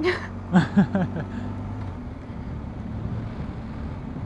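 BMW R1250 GS Adventure boxer-twin engine running at a steady cruise, with wind noise on the bike-mounted microphone. A brief voice is heard in the first second.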